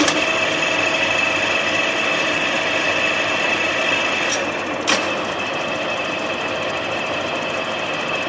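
6R12 vertical milling machine running under power, its spindle and gearbox giving a steady mechanical whine with a high tone over a lower one. Sharp clicks sound near the start and about five seconds in.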